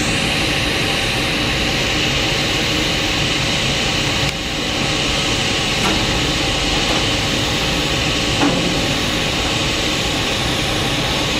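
TIG welding arc hissing steadily while filler wire is fed automatically into the puddle by a Fronius Dynamic Wire feeder. The level dips briefly about four seconds in.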